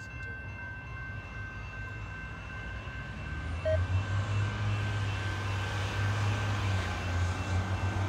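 Approaching CN freight train's diesel locomotives: a low engine rumble that grows louder about halfway through. Faint steady high tones run underneath.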